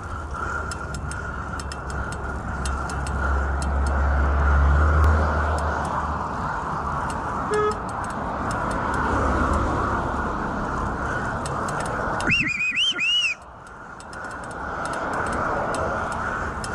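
Wind rushing over the microphone of a handlebar-mounted camera and road noise from a bicycle ridden along a street, with a heavy low rumble. About twelve seconds in, a brief high wavering squeal sounds for about a second; then the rushing drops away suddenly and slowly builds again.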